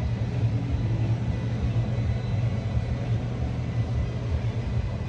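5.9 Cummins straight-six diesel engine idling with a steady low rumble.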